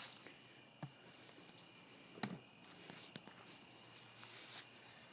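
Faint light knocks and taps, three of them a little louder, about a second apart, over a steady background hiss.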